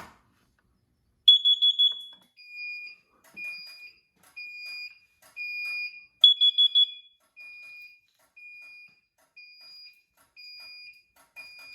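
Carbon monoxide detector sounding its temporal-4 alarm: a group of four quick, high beeps about a second in, and another about five seconds later. A lower beep repeats about once a second between the groups.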